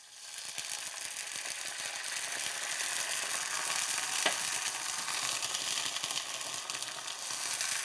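White wine sizzling in a hot sauté pan of browned garlic, onion and sun-dried tomatoes, the hiss rising within the first second and then running steadily as the wine deglazes the pan, lifting the browned bits stuck to the bottom. One short squeak near the middle.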